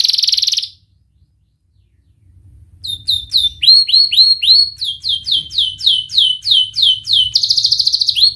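Domestic canary singing: a fast, dense trill that stops under a second in, then after a pause a run of sharp slurred 'cuit' notes at about three a second, broken by another rapid trill near the end.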